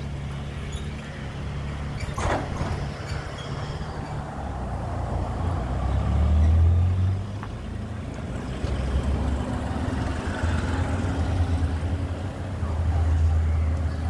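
Road traffic passing on the street alongside: a steady low engine rumble, loudest about six seconds in as a vehicle goes by.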